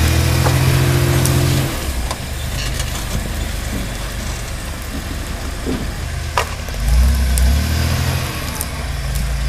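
Engine of a supercharged flat-fender Jeep rock crawler revving in bursts as it crawls over rocks. It is held high for about a second and a half, drops to a lower run, then rises and falls again about two-thirds of the way in. There is one sharp knock a little before that.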